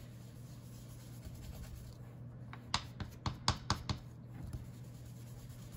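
A quick string of about seven light taps in a little over a second, starting about three seconds in: a foam ink dauber being pounced onto a Distress Ink pad to load it with ink.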